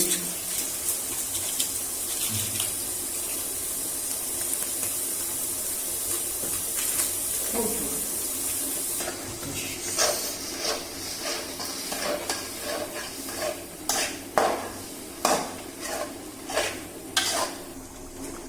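Spice masala sizzling in a hot pan as it is sautéed with a spoon: a steady sizzle for about the first half, then repeated scrapes and clinks of the spoon against the pan, about one or two a second.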